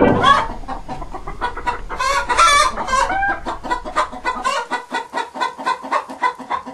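Domestic hens clucking in a quick run of short calls, with a few louder, drawn-out squawks about two seconds in.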